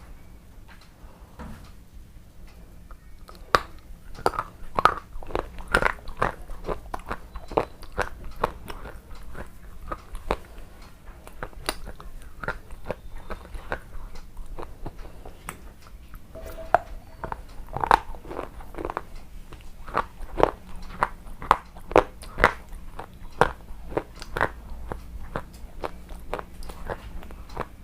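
Red shale being bitten and chewed: a dense run of sharp, irregular crunches and crackles as the brittle clay rock breaks between the teeth, starting about three seconds in.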